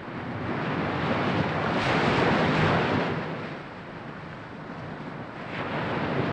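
Ocean surf breaking on a beach: a wave swells to its loudest about two seconds in and washes out, and another builds near the end.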